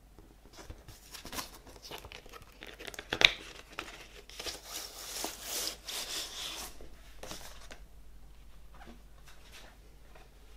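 Large paper lyric-sheet inserts rustling and crinkling as they are handled and turned over, with one sharp crisp snap of the paper about three seconds in. The rustling dies down to light handling noise after about eight seconds.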